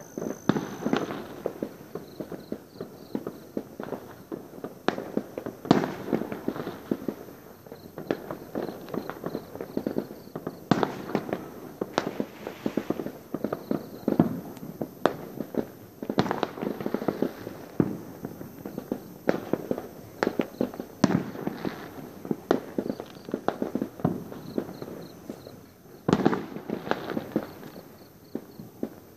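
Many fireworks bursting at once: a continuous, irregular run of bangs and crackles overlapping each other, with no let-up.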